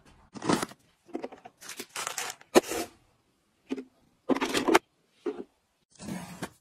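A string of short rustling, scraping and tearing sounds as household items are handled, separated by brief silences; the last, about six seconds in, is a utility knife slitting the tape on a cardboard box.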